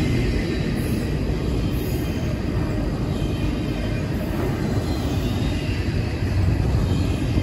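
Double-stack intermodal well cars of a long freight train rolling past: a steady rumble of steel wheels on the rails.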